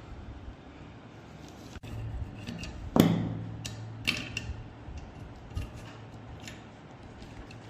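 Scattered light clicks and taps, with one heavier knock about three seconds in that leaves a low hum behind it.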